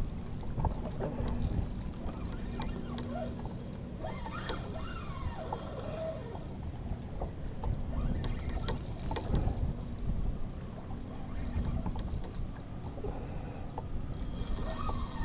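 Water lapping and splashing against a fishing kayak's hull with wind on the microphone, and scattered light knocks and clicks.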